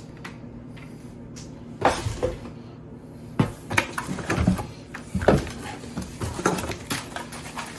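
Plastic vacuum parts and packaging being handled: a series of separate knocks and clicks, a few seconds apart.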